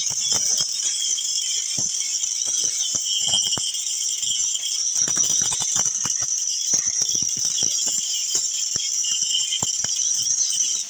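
Electric arc welding on sheet metal: a steady sizzling hiss with irregular crackles and pops throughout.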